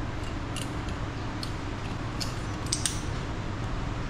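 A few light, sharp metallic clicks and clinks, with a quick cluster near three seconds in, as motorcycle front-fork parts and hand tools are handled during a fork oil-seal rebuild. A steady low workshop hum runs under them.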